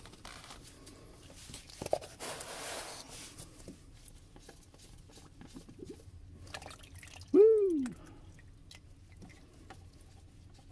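Used engine oil running and dripping from a loosened spin-on oil filter into a plastic drain pan. A man shouts "Woo!" once about seven seconds in, the loudest sound.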